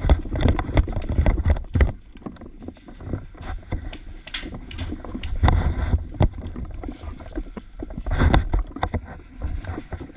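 A player on the move: irregular footsteps and gear rustling with low rumbling bumps on the microphone, and scattered short clicks and knocks.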